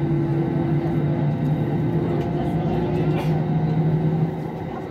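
Cabin noise of an Airbus A320-family jet holding still on the runway: a steady hum with low droning tones from the idling engines and air system.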